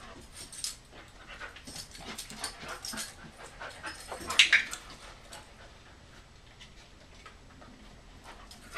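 A dog panting and moving about, with irregular short breathy and scuffing sounds and one louder sharp noise about four and a half seconds in.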